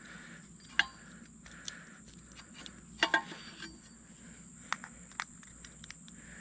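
Metal hardware of a tree-saddle and climbing-stick setup clinking and clicking as it is handled during the climb. There is a sharp clink about a second in, a close pair around three seconds, and a few lighter clicks later.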